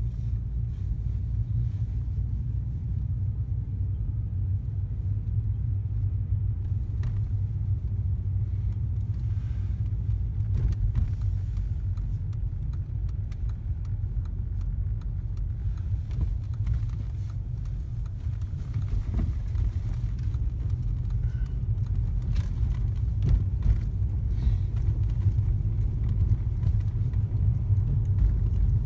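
A car driving along: a steady low rumble that grows a little louder near the end, with a few faint knocks.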